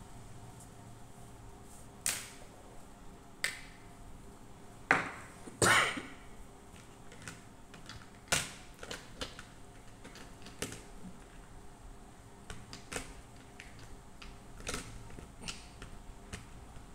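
Scattered light clicks and knocks of things being handled on a tabletop, loudest about five to six seconds in.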